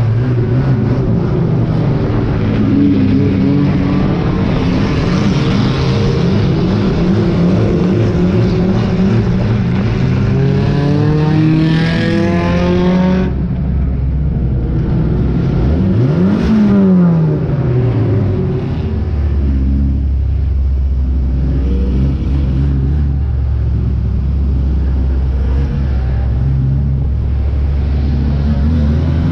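Banger racing car's engine heard from inside its stripped-out cabin, revving up and down with its pitch rising and falling. About halfway through the sound cuts to a lower, steadier engine drone.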